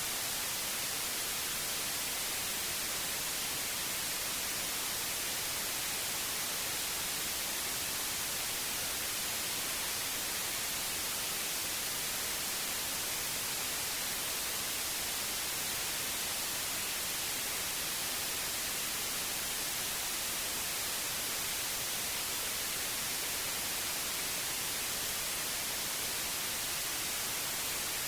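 Steady white noise: an even hiss, brightest in the high range, that does not change.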